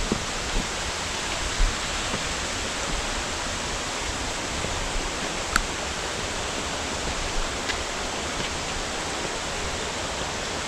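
A mountain brook rushing steadily over rocks, with a few light clicks of boots stepping on stone.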